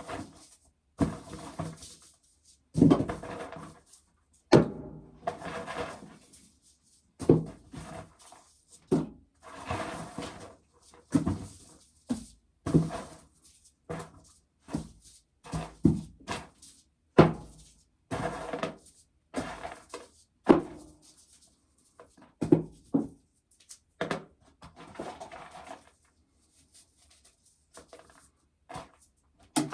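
Dry corn being shelled off the cob by hand, the kernels clattering into a pail in short, separate bursts about once a second.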